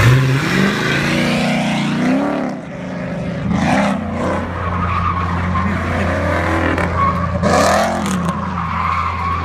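TVR Griffith 500's V8 engine revving up and falling back again and again as the car is driven sideways around cones, with tyre skidding noise swelling about four seconds in and again near the end.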